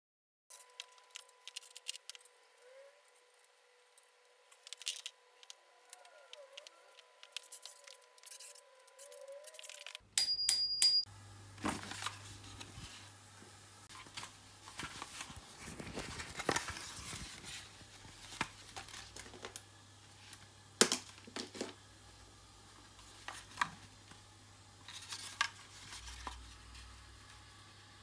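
Scattered clicks, knocks and rustles of a Brompton folding bike's parts and then a bicycle helmet and its straps being handled. About ten seconds in there is a loud burst of clatter.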